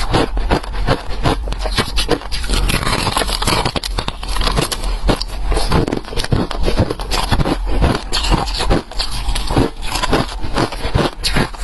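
Close-miked crunching and chewing of ice in the mouth: a dense, unbroken run of sharp, crackly crunches, several a second.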